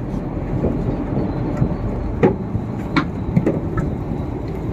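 Fishing boat's engine running with a steady low rumble, with a few short knocks about halfway through as net floats and rope are handled and go over the gunwale.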